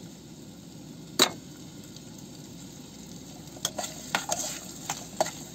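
Onions and potatoes sizzling in a steel pot over a gas burner, with a sharp click about a second in. From about halfway through, a metal spoon scrapes and clinks against the pot as they are stirred.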